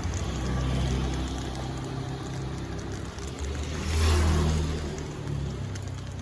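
A motor vehicle's engine running, its pitch shifting, with a louder stretch about four seconds in.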